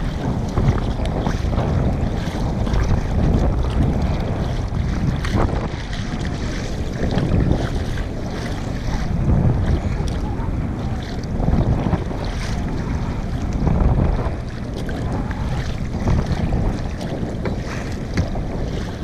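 Wind buffeting the microphone over water sloshing and splashing around a kayak, with a swell of paddle splash about every two seconds as the double-bladed paddle dips on alternate sides.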